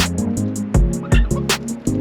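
Background music with a steady beat: a bass line and chords under regular drum hits.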